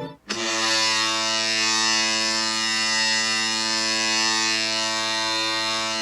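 NHL arena goal horn sounding one long, steady, low blast that starts about a third of a second in and begins to die away near the end.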